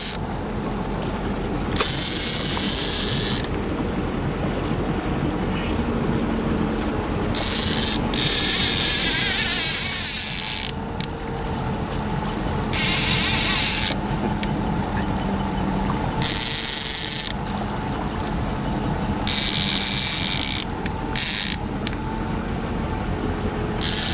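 Boat motor running steadily at trolling speed, with about eight loud bursts of high buzzing hiss, each lasting one to two seconds, at irregular intervals.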